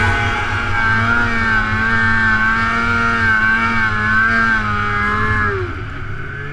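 Snowmobile engine running at high revs as the sled ploughs through deep powder, its pitch wavering slightly with the throttle. About five and a half seconds in, the revs fall away and the sound drops as the throttle eases off.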